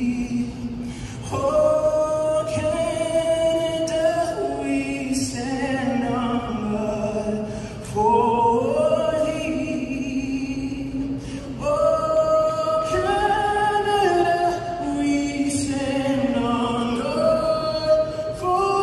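A male singer performing the national anthem into a microphone over the arena's sound system: a slow solo melody with long held notes.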